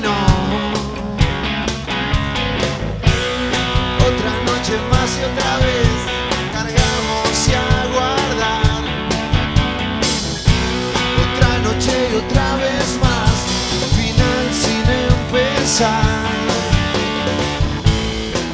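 Rock band playing live, with drum kit, electric bass and electric guitars. Steady drum beat under a full band sound.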